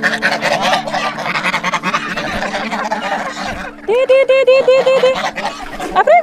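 A feeding flock of chickens and domestic geese calling together in a busy din. About four seconds in, a goose gives a fast run of about seven honks, and another run of honks starts at the very end.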